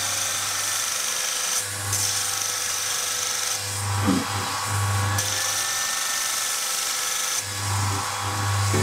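Electric bench grinder with a coarse sanding disc running with a steady motor hum. A high abrasive grinding whine comes and goes in stretches of a second or two as metal is ground down.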